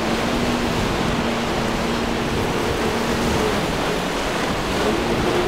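A powerboat's engines humming steadily under the loud rush of breaking waves as the boat punches through rough inlet water. The engine tone fades under the wash about midway, as the bow slams into a wave, and returns at a higher pitch near the end.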